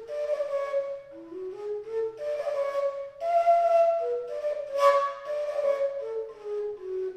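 Slovak fujara, the long overtone shepherd's flute, playing a folk melody of held notes that step up and down, its tone airy with breath noise.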